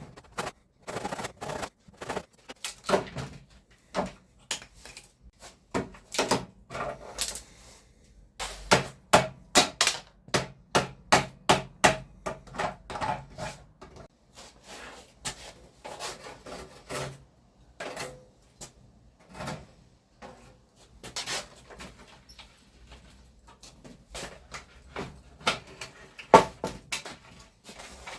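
Hammer blows on timber framing: many separate knocks, with a steady run of strikes, two to three a second, about a third of the way through.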